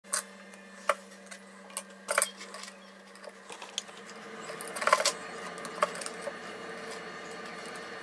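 Small sterling silver parts, a box clasp and chain links, clicking and clinking against each other and the workbench as they are handled: scattered sharp ticks, loudest about five seconds in, over a low hum.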